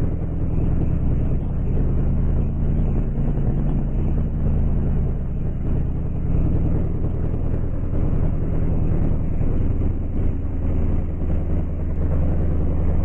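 A steady, low engine drone with no clear change.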